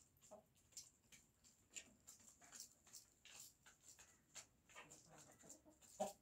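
Faint, irregular soft taps and clicks of hens pecking at feed on the ground around a metal feeder, with one slightly louder short sound near the end.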